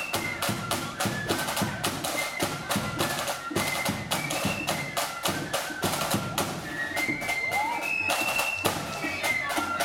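Marching flute band playing: a quick flute melody over rapid side-drum strokes and a bass drum.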